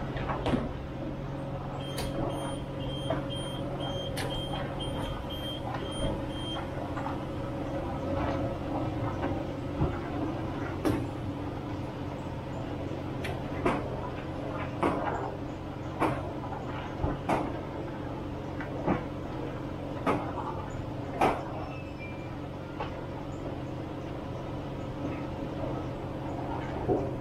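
Steady hum of car wash bay equipment, with sharp knocks and taps scattered through as a long-handled foam brush is scrubbed over a soapy car body. A short run of faint high beeps comes about two seconds in.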